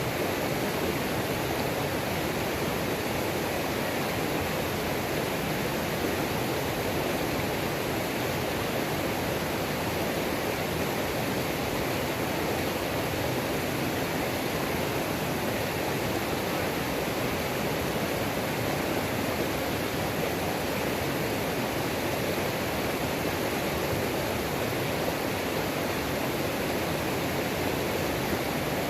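Waterfall on a mountain creek: water pouring and splashing in a steady, unbroken rush.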